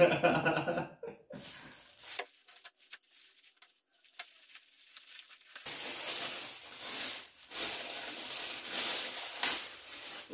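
Gift wrapping crinkling and tearing as a present is unwrapped by hand: scattered handling clicks first, then a long stretch of dense rustling from about halfway through. A short burst of voice opens it.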